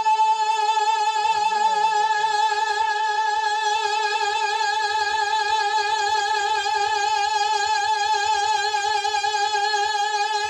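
A man's naat-singing voice holding one long sustained note with a steady, even vibrato, unbroken for about ten seconds.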